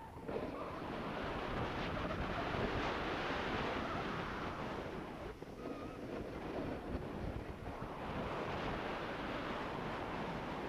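Snowboard sliding and scraping over hard, tracked piste snow, a rushing hiss that swells and eases in long waves, mixed with wind buffeting the microphone.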